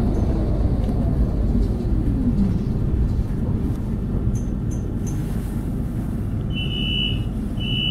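Interior running noise of a Nottingham tram: a steady low rumble with a motor whine that falls in pitch over the first couple of seconds. Two short high electronic beeps sound near the end.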